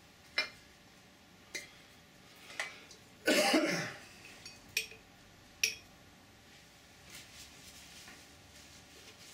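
Small taps and clicks of tools and objects being put down and handled on a workbench, with one louder noisy burst about three seconds in.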